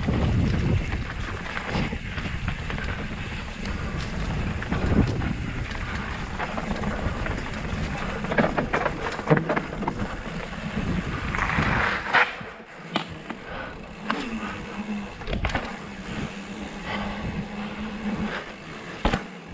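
A Santa Cruz Chameleon hardtail mountain bike riding a dirt trail, heard from a helmet-mounted camera. Wind rushes over the microphone along with tyre noise and scattered knocks and rattles over the ground. It gets quieter about twelve seconds in.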